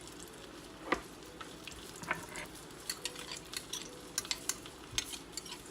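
Stuffed tacos frying in a pan of hot oil, a steady sizzle with scattered sharp pops and clicks, the busiest in the second half.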